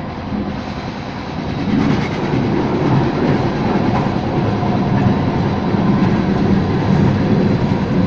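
Diesel road roller driving past close by on fresh asphalt, a heavy steady rumble that grows louder about a second and a half in as it comes alongside.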